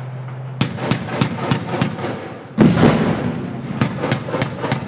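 Bradley fighting vehicle's autocannon firing a string of single shots, about three a second, each echoing across the range. About two and a half seconds in comes a louder, heavier boom with a long echo, and then the rapid shots go on.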